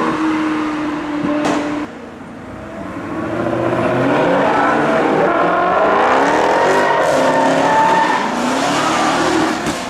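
A Ferrari 458 Spider's V8 is heard briefly as the car pulls away. About two seconds in, a Dodge Charger SRT Hellcat's supercharged V8 takes over, revving as the car drives past, its pitch rising and falling repeatedly and loudest in the second half.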